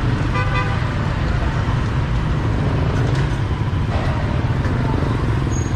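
Steady low rumble of motorbike engines and street traffic.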